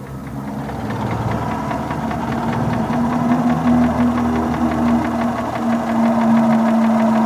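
Car engine running with a rapid rhythmic knock. The revs and loudness rise over the first second or two, then hold steady.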